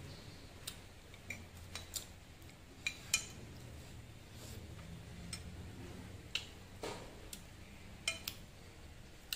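A metal spoon clinking and scraping lightly in a ceramic bowl of dipping sauce, mixed with mouth sounds of eating, heard as about a dozen short, sharp clicks at uneven intervals.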